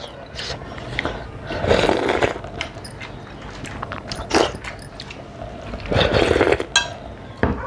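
Close-miked eating sounds: rice and curry chewed and slurped, eaten by hand, coming in several wet bursts. The longest, about six seconds in, is a slurp of gravy sucked straight from the rim of a plate.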